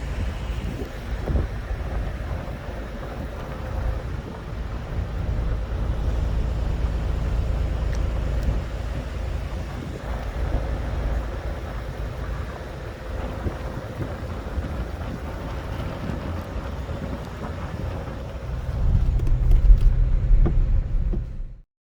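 Car road noise heard from inside the cabin while driving: a steady low rumble of engine and tyres. It grows louder near the end, then stops abruptly.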